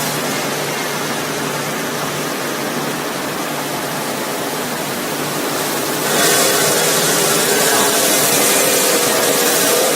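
TSXK-60 basket and crate washing machine running, its water jets spraying with a steady rushing hiss over a machine hum; the spray gets louder about six seconds in.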